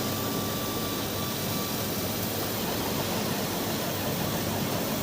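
Laser cutting machine running: a steady rushing noise of moving air with a faint hum underneath, even throughout.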